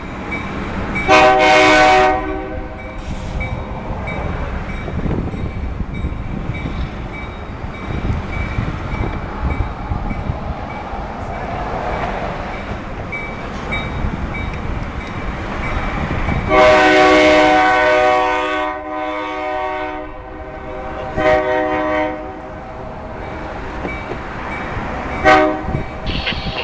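Pennsylvania Railroad E-unit diesel locomotives sounding their multi-note horn: a short blast about a second in, a long blast of over two seconds past the middle, another short blast a few seconds later and a brief toot near the end. Beneath the horn runs the steady rumble of the slow-moving train crossing the track switches.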